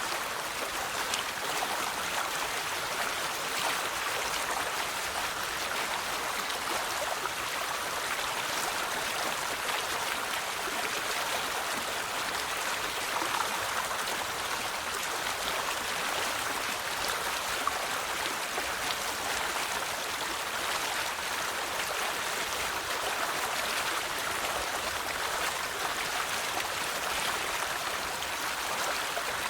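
River water flowing and splashing over stones, a steady rushing babble with fine droplet patter.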